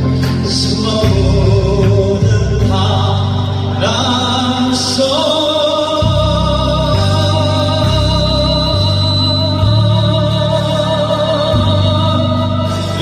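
A Korean popular song sung over a backing track with a steady beat; from about five seconds in the voice holds one long note with vibrato.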